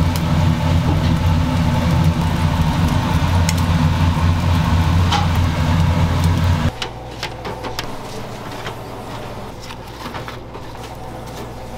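Loud, steady low motor hum from kitchen machinery. It drops off suddenly about seven seconds in, leaving a quieter background with light metallic clicks.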